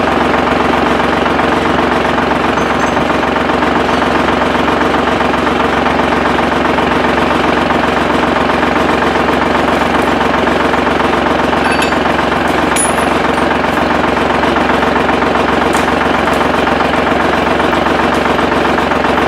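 Diesel engine of a log skidder running steadily at a constant speed, with a steady hum and no change in pitch.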